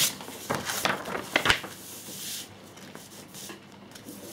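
Paper rustling and tapping as a glossy instruction magazine is moved, opened and pressed flat on a cutting mat: a few quick rustles and taps in the first second and a half, then a softer, longer rustle.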